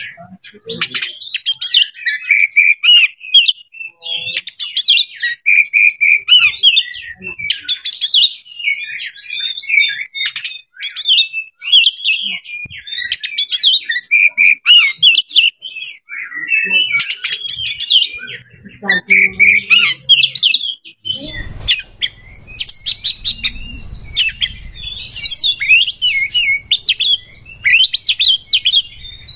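Oriental magpie-robin singing a loud, continuous, varied song of clear whistles, sliding notes and rapid chattering phrases.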